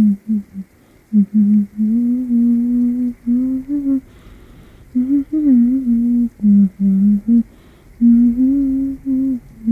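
A voice humming an improvised, wordless tune: short melodic phrases broken by brief pauses, with a longer pause about four seconds in.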